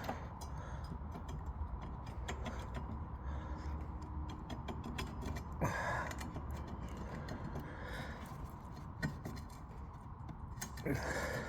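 Scattered light metallic clicks and taps as worn motor-scooter front brake pads are worked out of the caliper, over a faint steady hum.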